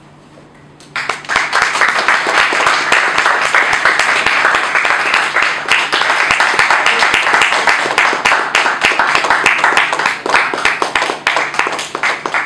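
An audience starts applauding about a second in, after a brief hush. The clapping is dense and even, then thins out near the end.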